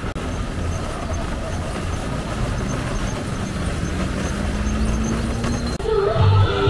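Road traffic noise with a vehicle engine running, its note rising slowly through the middle. Near the end it cuts to music with guitar.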